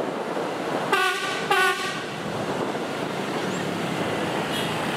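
Two short horn blasts from a railway inspection train, one right after the other about a second in, over the steady running noise of the train and street.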